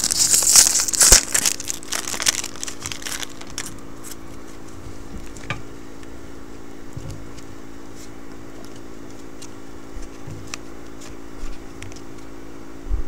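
The silvery wrapper of a Topps football card pack crinkling loudly as it is handled and opened, with many sharp crackles, for the first three seconds or so. After that, only soft scattered clicks as the stack of cards is slid through by hand.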